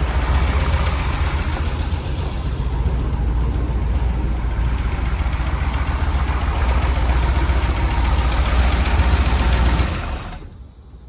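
A Chevrolet 454 big-block V8 idling steadily and smoothly, with only a mild cam. The sound drops away sharply about ten seconds in.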